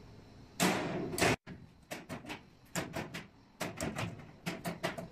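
Locker vending machine's electric locks releasing one by one during a whole-machine test. A louder clack comes about a second in, then a rapid run of sharp clicks, about four a second, as the locker doors unlatch in turn.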